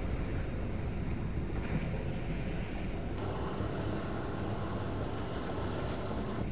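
Steady low rumble of wind on the microphone and a small motorboat out on the water, with a brighter hiss joining about three seconds in.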